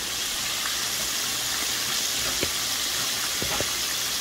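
Flour-coated fish frying in a pan of hot oil: a steady sizzle with a few scattered pops.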